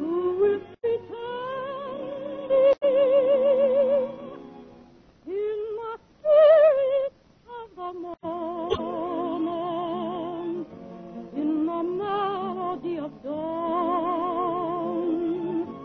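A woman's soprano voice singing a song in long held notes with wide vibrato, in several phrases with short breaths between, over instrumental accompaniment; a loud high note about six seconds in.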